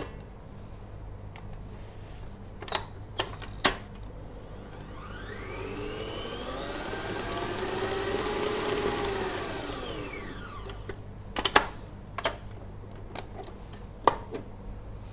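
Electric stand mixer motor whining up to speed and back down again over about six seconds as its speed dial is turned, beating the cake batter together. A few sharp knocks come before and after.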